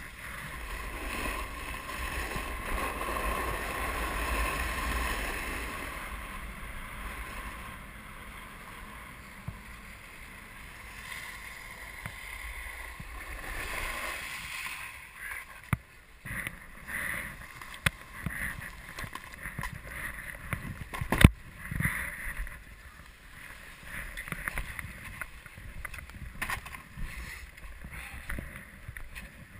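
Skis hissing and scraping over packed snow while skiing downhill, with wind on the microphone. About halfway through the skis slow to a stop, and scattered clicks and knocks follow, the loudest a sharp knock about 21 seconds in.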